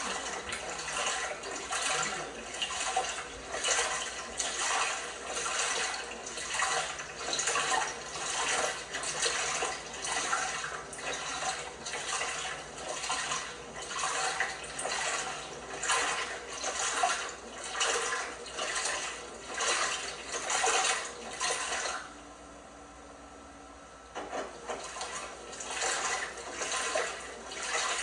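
Water and laundry sloshing in an LG washing machine's drum during the wash tumble, surging about once a second. The sloshing stops for about two seconds near the end, then starts again.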